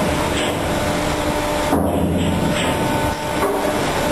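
Steady drone of a patrol ship's engines and deck machinery, a constant hum under broad noise. The sound changes abruptly about two seconds in.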